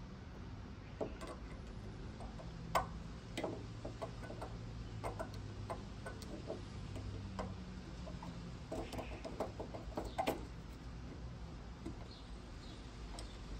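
Irregular small metallic clicks and ticks of a screwdriver and tiny metal fittings being worked into an MG TD petrol cap's trigger release, with a quick run of clicks about nine to ten seconds in.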